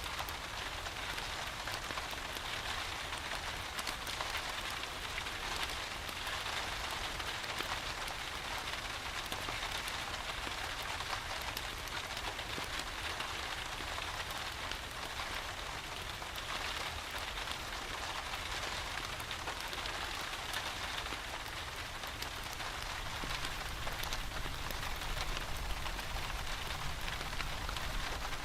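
Steady rain falling on a surface, with scattered faint ticks and a low rumble underneath.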